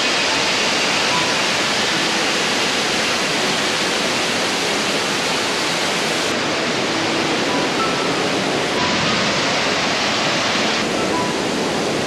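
Steady rushing of a small waterfall and mountain stream cascading over boulders.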